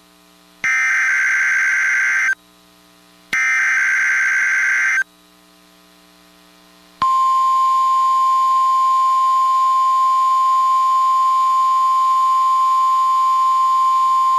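Emergency Alert System activation on NOAA Weather Radio: the last two of the three SAME header data bursts, each a harsh buzzy screech about a second and a half long. After a pause of about two seconds comes the single steady 1050 Hz warning alarm tone, which begins about halfway through and holds. Together they announce a snow squall warning.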